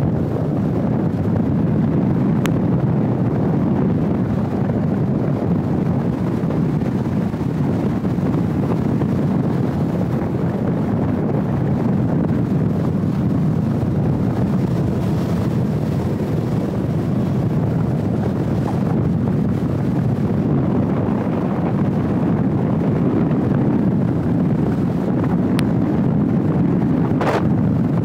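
Steady wind rushing over the microphone of a 360° camera held outside a moving car, mixed with the car's road noise.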